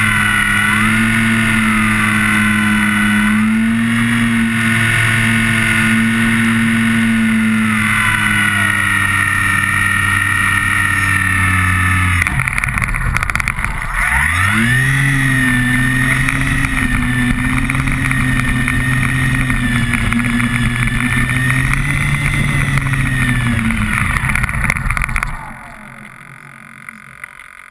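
Multiplex Fun Cub RC plane's electric motor and propeller running close to the camera, a steady drone with a high whine. About halfway through the throttle drops and the pitch sinks, then it rises again and holds. Near the end the motor cuts off, leaving a much quieter hiss.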